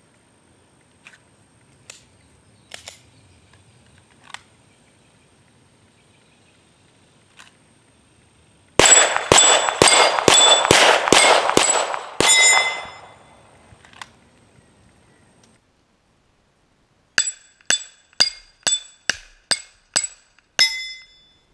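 Glock 17 9mm pistol fired in a rapid string of about ten shots, with each hit ringing the 6-inch steel swinger plates. After a pause, another quick string of about nine hits follows, heard close to the plates, each one a sharp clang that rings out.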